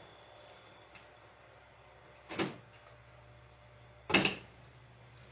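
Two short clunks of tools or parts being handled on a workbench, the second louder, about two seconds apart.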